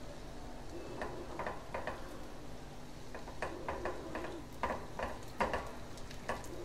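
A paratha-wrapped chicken roll deep-frying in a pan of hot oil: a low sizzle with irregular ticks and pops as the spatula spoons oil over it.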